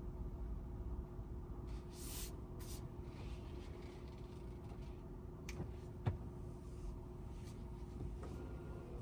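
Quiet electric pickup cabin: a steady low hum with a faint tone, a brief hiss about two seconds in and a single sharp click about six seconds in.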